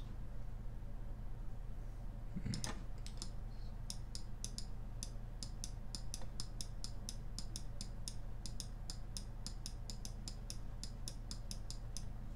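A computer mouse clicking rapidly and repeatedly, about four clicks a second from about four seconds in, over a steady low hum. A brief rustle comes a little after two seconds in.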